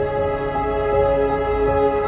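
Background music with slow sustained notes over a low drone.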